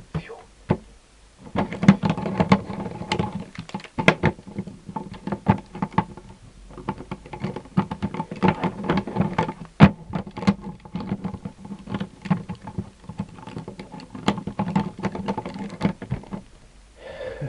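Rubik's Master Magic tile puzzle being folded and flipped rapidly through a timed solve: a dense run of plastic tiles clicking and clattering for about fifteen seconds. It starts with a single click just as the solve begins.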